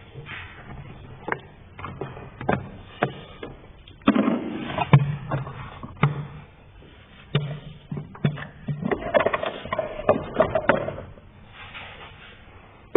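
Hands and tools working at parts: a string of sharp clicks and knocks, with stretches of rubbing and scraping noise about four seconds in and again near ten seconds.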